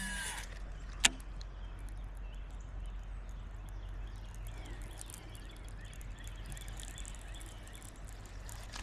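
Outdoor ambience: a steady low hum with faint, scattered bird calls, and a single sharp click about a second in.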